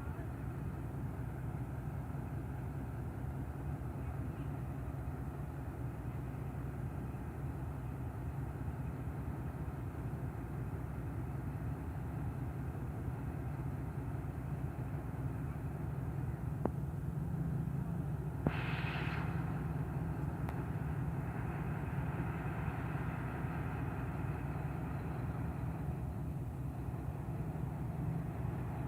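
ZCU 20 diesel-electric locomotive's engine running with a steady low chugging drone, growing a little louder after about the halfway point as it works, with a brief hiss and two sharp clicks a little past halfway.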